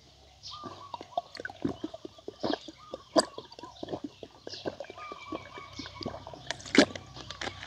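A man gulping water from a plastic bottle: a quick run of swallows starting about half a second in, with one louder gulp near the end.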